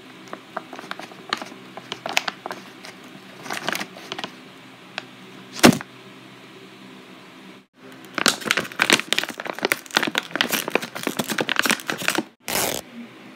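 A plastic pouch of Kinetic Sand crinkling and crackling as it is handled and torn open, with one sharp click about halfway and dense crackling near the end. The sound cuts out abruptly twice, at edits.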